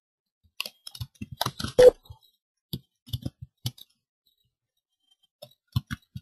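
Computer mouse clicks and keyboard keystrokes in irregular clusters of short, sharp clicks, with silent gaps between them.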